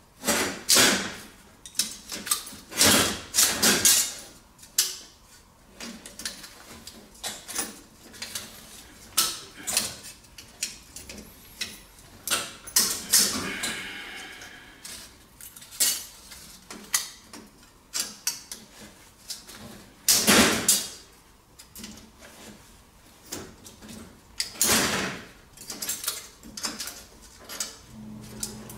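Irregular metallic clanks, scrapes and knocks as a short length of copper baseboard heater pipe with aluminium fins is handled and worked on, with a brief squeak of metal on metal around the middle.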